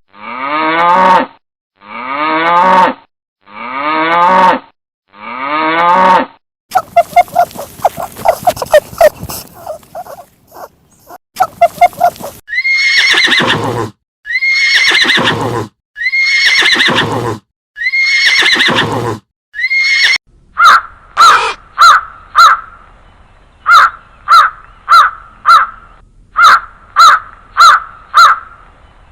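A series of recorded animal calls: four long calls that fall in pitch, a rough pulsing stretch, about five calls that rise and then fall, and then a quick run of short repeated calls near the end.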